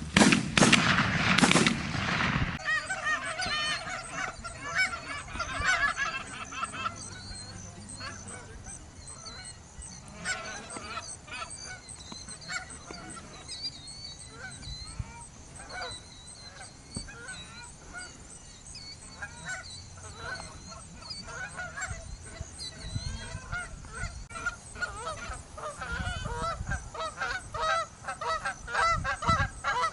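A flock of giant Canada geese honking in many overlapping calls, growing busier toward the end. A loud rushing noise fills the first two seconds or so.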